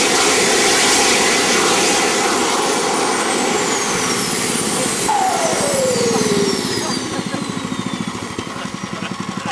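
Small jet engines on a homemade go-kart running with a loud rushing hiss, then winding down: from about halfway several whines fall slowly in pitch, and after about seven seconds the sound drops to a quieter rapid pulsing rumble.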